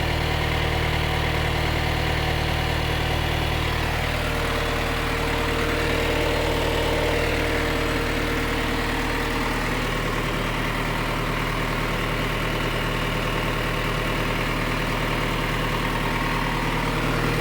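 John Deere 2440 tractor's four-cylinder diesel engine idling steadily.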